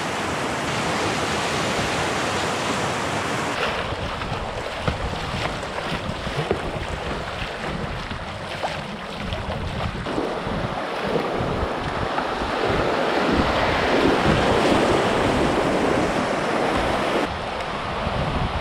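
Rushing river rapids, a steady loud churn of whitewater with wind buffeting the camera microphone. A few seconds in, the sound changes to water rushing close around a kayak running downstream.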